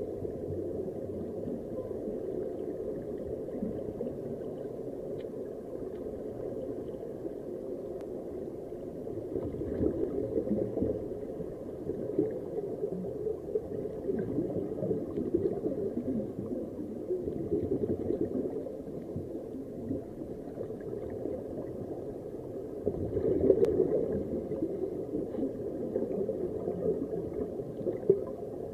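Muffled underwater bubbling and gurgling of air venting from sea-walk helmets, a dense steady wash that swells twice, about a third of the way in and again past three-quarters, with a sharp click at the second swell and another near the end.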